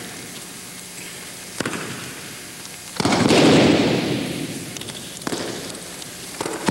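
Ukes taking breakfalls on a gym's wrestling mats as they are thrown, each landing a sudden thud that echoes and fades through the gym. There are heavy landings about three seconds in and near the end, and lighter ones in between.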